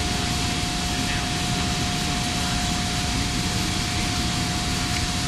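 Steady machinery noise: an even hiss and rumble with one constant mid-pitched whine.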